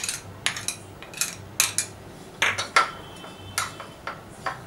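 Metal spoon clicking and scraping against small serving bowls as chopped coriander is scraped out into a stuffing mix: a string of sharp, irregular taps, roughly one every half second, one of them ringing briefly about three seconds in.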